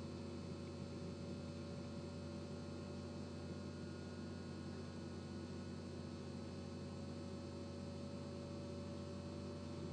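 Steady low electrical hum with a faint higher tone above it and a light hiss, unchanging throughout.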